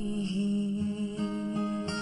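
Background music with acoustic guitar, held notes with new ones coming in during the second half.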